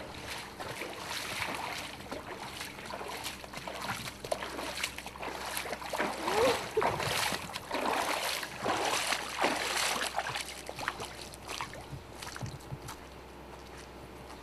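Feet wading through floodwater, with irregular splashing and sloshing strokes that ease off near the end.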